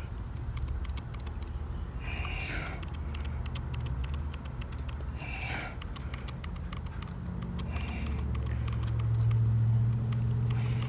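Steady low mechanical hum, like an engine running nearby, swelling about eight seconds in, with a short high chirp every few seconds and faint clicking.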